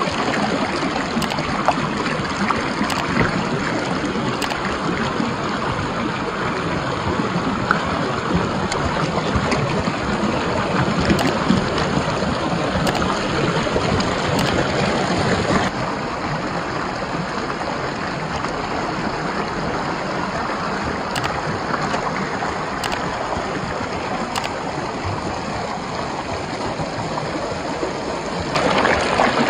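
Shallow mountain stream rushing and splashing over rocks, a steady dense wash of water noise. Its tone shifts about halfway through and again near the end.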